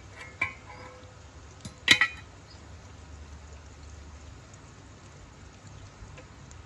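Metal pot lid clinking against a cooking pot as it is lifted off: a small clink about half a second in, then a louder ringing clink at about two seconds. A steady low rumble continues underneath.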